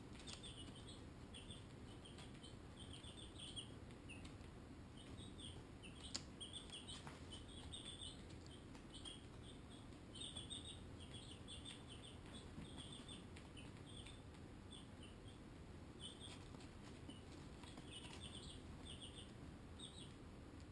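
Baby chicks (Barred Rocks and Americanas) peeping: runs of short, high-pitched peeps coming in quick clusters throughout, faint over a low steady hum. One sharp tick about six seconds in.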